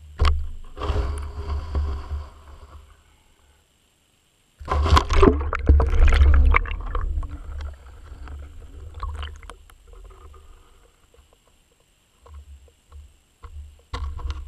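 Muffled underwater rumble and swishing of water against a submerged camera as it moves, with scattered knocks and clicks. There are two loud stretches, the second starting after a sudden dead gap about four seconds in, and the sound thins out after that.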